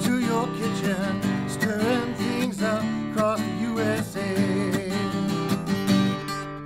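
Acoustic guitar strummed in chords, with a man singing along to it, the voice clearest in the first half.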